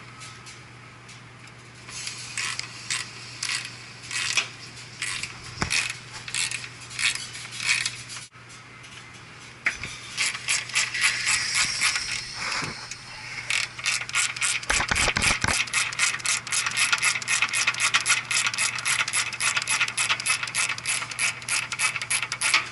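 Ratcheting service wrench clicking as the condenser's refrigerant service valve stems are turned open to release the charge into the lines. Scattered clicks at first, then from about halfway a fast, even run of about four or five clicks a second.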